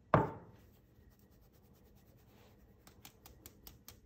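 A single soft knock, then a run of quick light taps from about three seconds in, about six a second, as a metal mesh sieve of flour is shaken and tapped over a glass bowl to sift it.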